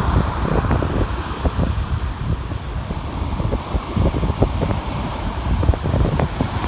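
Wind buffeting the microphone in irregular gusts, a heavy low rumble with frequent short thumps.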